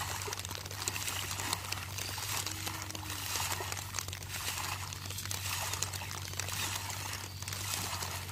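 Hand hoes slapping, scraping and churning through waterlogged paddy mud, with splashes and squelches, over a steady low hum.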